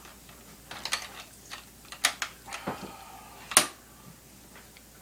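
Light clicks and taps of plastic Play-Doh tools and playset pieces being handled, coming irregularly, with one sharper knock about three and a half seconds in.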